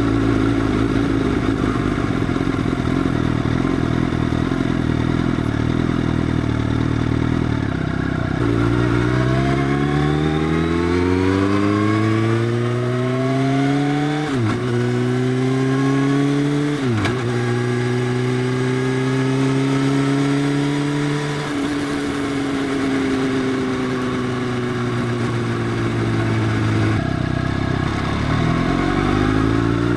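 Motorcycle engine with an Arrow full exhaust system, dB killer removed, idling, then pulling away with rising revs and two quick upshifts. It holds a steady cruise, eases off, and near the end accelerates again.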